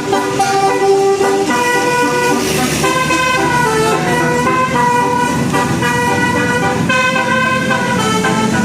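Bus's Basuri 'telolet' multi-tone horn playing a melody of held notes, several sounding together and changing pitch in steps.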